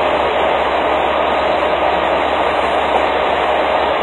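Steady, unbroken machinery noise at a truck fuel island, loud and even throughout.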